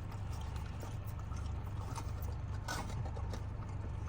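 Steady low hum of a car idling, heard inside the cabin, with a few faint clicks and rustles over it.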